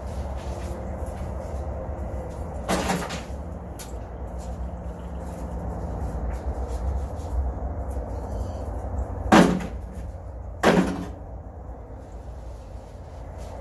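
Three loud clunks of chunks of broken concrete and stone rubble tossed into a metal wheelbarrow: one about three seconds in, then two more about a second apart near the end, over a steady low rumble.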